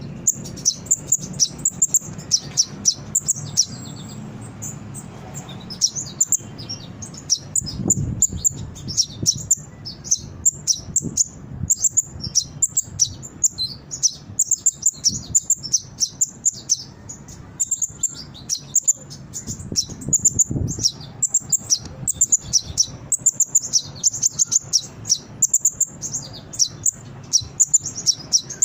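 Kolibri ninja (konin) sunbird singing vigorously: a fast, continuous run of high-pitched chirps and twitters, thinning briefly about four seconds in.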